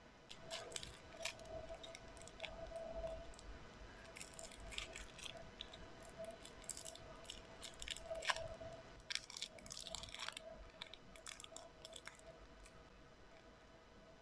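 Slime being worked by hand, with irregular crackling and popping clicks, busiest in the middle and thinning out near the end.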